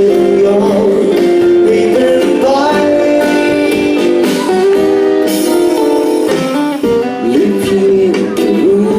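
Live band playing the instrumental break of a Thai pop ballad, with a guitar carrying the melody over the backing.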